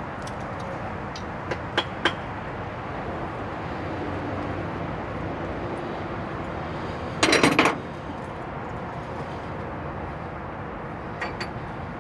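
Tools and engine parts being handled while a cylinder head comes off a V8 block. There are a few light clicks, then a short clatter of knocks about seven seconds in, over a steady background hiss.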